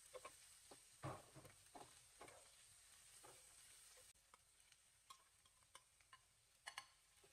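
Faint sizzling of sliced mushrooms and garlic frying in a nonstick pan, with scattered clicks and scrapes of a metal spatula stirring them. Near the end there is a quick patter of sharp clicks as raw rice is poured into the pan.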